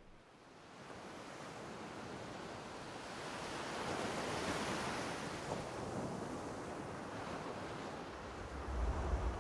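Ocean surf breaking on a sandy beach, fading in and rising to its loudest about halfway through. A deep low rumble joins near the end.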